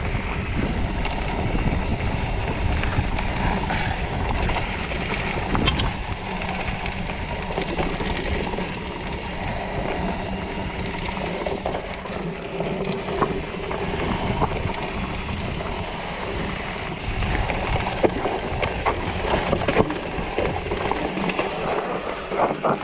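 Mountain bike riding fast down dirt singletrack: the tyres rumble over dirt and rocks, and the bike rattles, with scattered clicks and knocks, under steady wind noise on the microphone.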